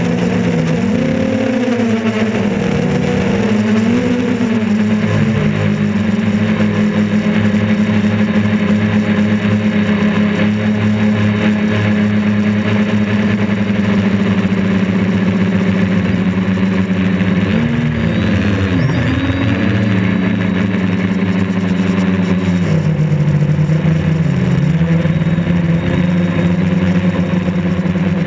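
Quadcopter's four electric motors and propellers whining steadily, heard from on board the DJI Flamewheel F450. The pitch wavers up and down several times in the first few seconds, again about two-thirds of the way through, and sinks a little for a couple of seconds near the end as the motor speeds change while the quad manoeuvres.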